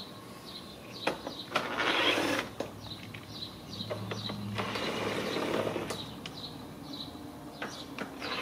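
Small cordless ratchet with an 8 mm socket spinning nuts off a plastic grille. It runs in short bursts, the longest about four seconds in, with clicks between runs.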